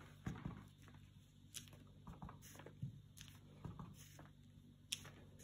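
A handful of faint, short taps from a clear acrylic stamp block being inked on an ink pad and pressed onto cardstock.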